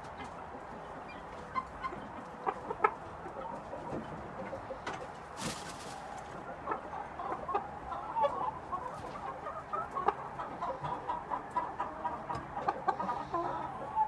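Chickens clucking in short, repeated notes that come thickest in the second half, with scattered sharp clicks and a brief rustle about five seconds in.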